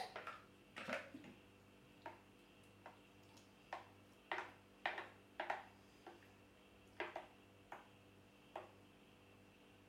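Thick, icy smoothie being poured from a blender jug into a cup: faint, irregular plops and clicks, about a dozen, spaced roughly half a second to a second apart.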